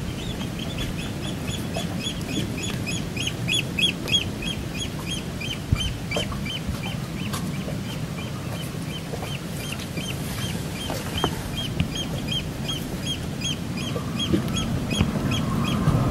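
A bird calling in a fast, steady series of short high notes, about three a second, over a low rumble.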